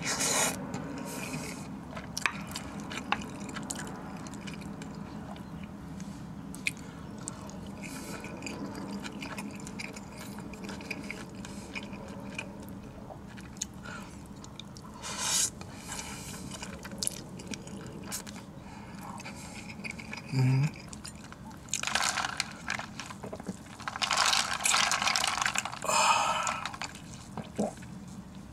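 A person eating Korean instant noodles with chopsticks: chewing and mouth sounds, with short noisy slurps of noodles, the longest run of them about three-quarters of the way through. A steady low hum lies underneath.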